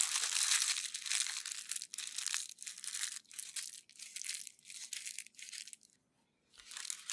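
Crumpled parchment paper crinkling and rustling as it is folded and twisted around an onion, with a brief break about six seconds in.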